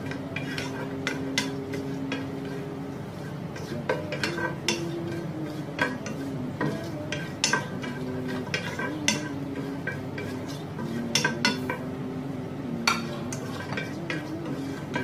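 Wooden spatula stirring in a shallow pan, scraping and tapping against the pan in irregular clicks.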